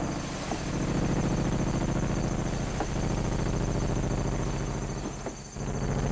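Battery-powered electronic synthesizer improvising a buzzy, rapidly pulsing low drone of several stacked pitches. Near the end it cuts out briefly with a short upward glide, then comes back on a slightly lower note.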